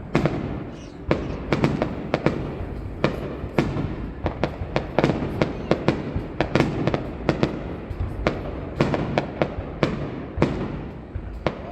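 Aerial fireworks bursting overhead: a quick, irregular run of sharp bangs, several a second, over a continuous low rumble of more shells going off.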